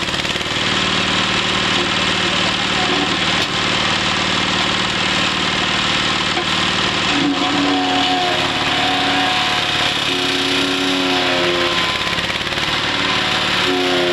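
Wood chipper running with a loud, dense, steady machine noise. About halfway through, a wavering pitched tone comes in over it and shifts up and down in pitch.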